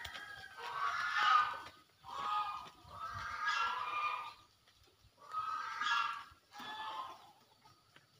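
Farmyard poultry calling over and over: about five loud, pitched calls, each up to a second and a half long, with short pauses between.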